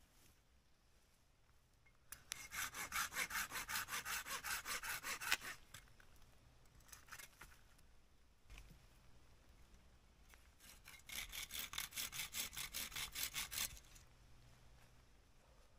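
Hand saw cutting through wood in two bouts of quick, even back-and-forth strokes, each about three seconds long, with a pause of several seconds between them.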